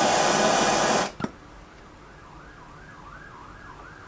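Gas soldering torch hissing steadily, then shut off about a second in with a click. After it, a faint wail rises and falls about three times a second.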